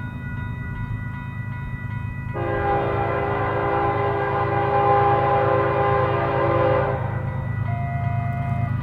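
Locomotive air horn sounding one long blast, a chord of several notes lasting about four and a half seconds, starting a couple of seconds in, over the steady low rumble of the train. A brief single tone follows near the end.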